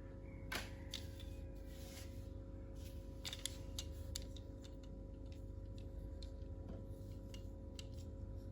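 Scattered light clicks and taps of plastic toy parts being handled, a few close together about three to four seconds in, over a steady faint hum.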